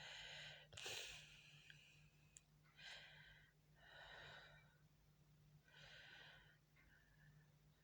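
Near silence: a low steady hum with about five faint, soft breaths.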